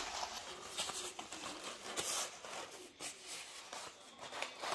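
Pink crepe paper rustling and crinkling as it is pressed and wrapped around a tray of sprouted wheat, in irregular crackly rustles with small clicks.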